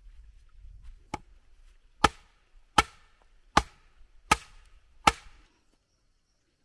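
Wooden club pounding a wooden stake into the ground: one lighter knock, then five sharp wooden blows about three-quarters of a second apart.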